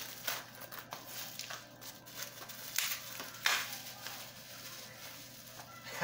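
Rustling and crinkling of packaging being unwrapped by hand, with a couple of louder crackles near the middle.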